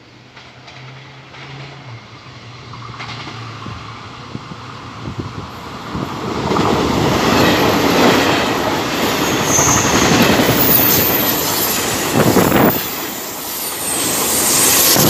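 Electric regional passenger train running through at speed, its rumble swelling over the first few seconds and staying loud as the coaches go by. There is a brief high-pitched squeal about ten seconds in.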